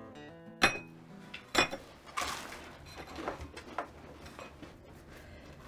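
Ceramic plates being set down on a kitchen counter: two sharp clinks about a second apart, then lighter clinks and handling noise.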